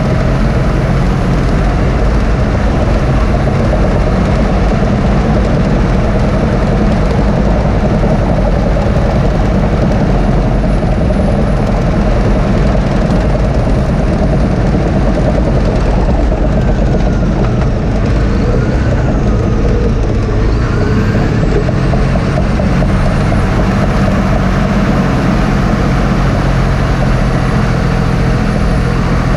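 Cat D6T LGP bulldozer's six-cylinder diesel engine running steadily under load while the machine pushes dirt with its blade, heard from inside the cab.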